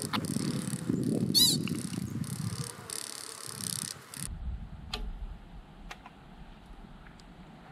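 American pika giving a single short, wavering squeak about a second and a half in, over wind rumble on the microphone. After a cut, a few faint ticks come at roughly one-second intervals.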